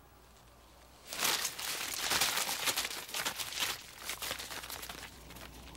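Paper rustling and crumpling as loose sheets are pulled out of a cloth money bag and handled, starting about a second in and dying away near the end.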